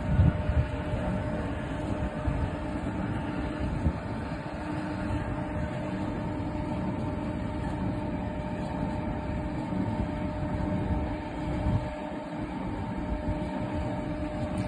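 A machine running steadily with a constant hum, over a low rumble with wind buffeting the microphone.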